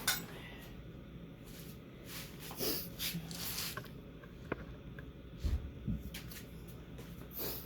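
Scattered clicks, knocks and short scrapes of metal parts and tools being shifted around, with a couple of dull thumps about halfway through.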